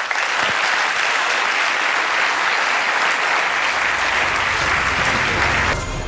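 A large audience applauding steadily, with the clapping cutting off near the end.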